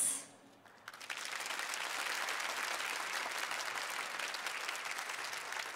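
Large audience applauding, the clapping starting about a second in after a brief hush and then continuing steadily.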